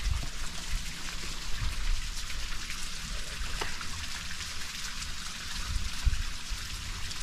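Steady hiss of water, with a few short low bumps about a second and a half in and again near six seconds.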